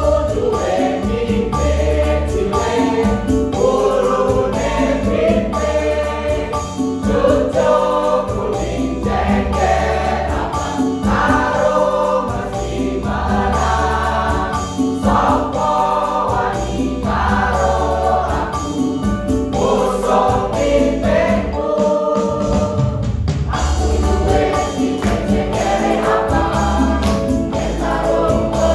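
Mixed choir of men and women singing together, with a lively rhythm and a deep bass accompaniment beneath the voices.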